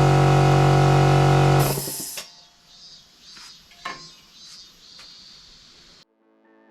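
Electric air compressor running loudly with a steady hum, then stopping about a second and a half in with a short hiss, followed by a few light knocks.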